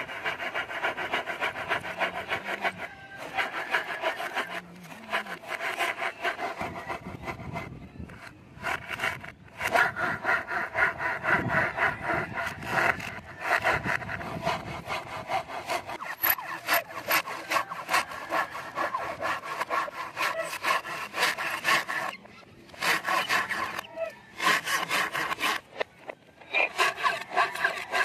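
Hand saw cutting wood with rapid back-and-forth strokes, stopping briefly several times.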